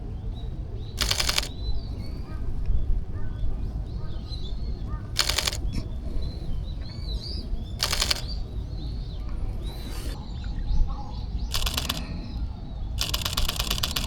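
Fujifilm X-H1 camera shutter firing in rapid bursts of continuous shooting, about six bursts of quick clicks, the last one the longest. Small birds chirp faintly in the background.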